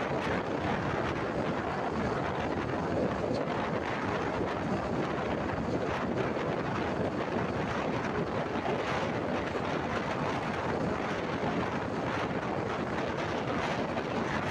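Steady rushing wind and road noise of a motorbike travelling at speed, with wind blowing across the microphone.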